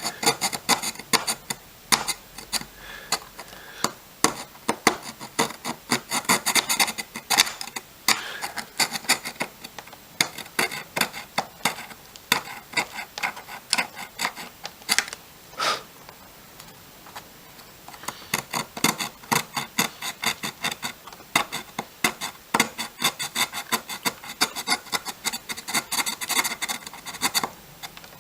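A fingernail file rasping against the corner of a drone's power distribution board in quick back-and-forth strokes. The strokes stop for a few seconds about halfway through, with a couple of small clicks, then resume.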